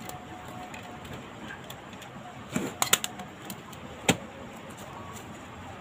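Rubber bands snapping against a phone's frame and the phone being handled: a cluster of sharp snaps and taps about two and a half seconds in and one more about four seconds in, over a steady low background noise.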